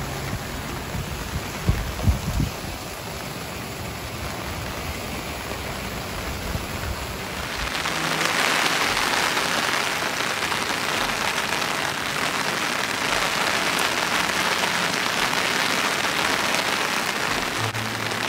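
Heavy rain falling, a steady hiss, with a few low thumps in the first couple of seconds. About seven seconds in the rain becomes louder and brighter and stays so.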